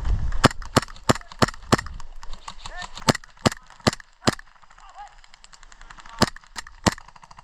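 Airsoft guns firing single shots as sharp cracks, about three a second in a run of a dozen, then three more near the end.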